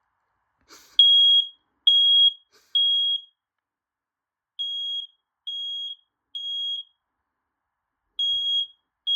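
Smoke alarm sounding, set off by test smoke spray: high-pitched beeps in the temporal-three pattern, three beeps then a pause, repeated three times, the first set loudest. A brief noise comes just before the first beep.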